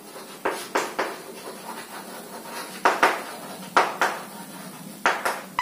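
Chalk writing on a blackboard: short, scratchy chalk strokes and taps, coming two or three at a time with brief pauses between, as a line of words is written.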